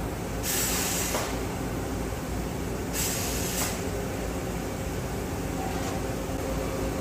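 Steady hum of a robot-loaded wheel spinning machine, with two short hisses of compressed air, about half a second and three seconds in. A steady tone joins the hum near the end.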